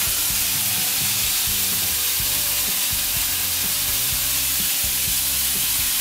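Morning glory and beef stir-frying in hot oil in a pan, sizzling steadily.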